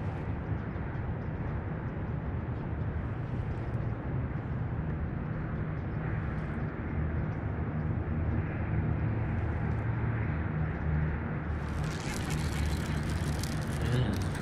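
A steady low engine rumble from distant motor traffic, with a hum that swells somewhat through the middle. About twelve seconds in, a harsh hissing noise sets in over it.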